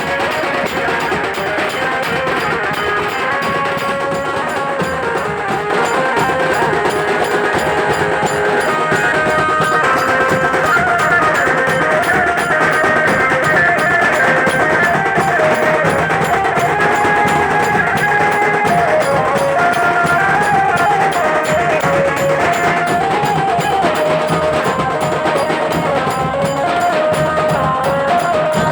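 Nashik dhol band music: dense, steady drumming under a wandering melody line, a little louder from about six seconds in.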